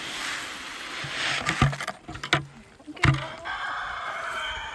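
Rustling, then three sharp knocks with low thuds, followed near the end by a drawn-out wavering squeak.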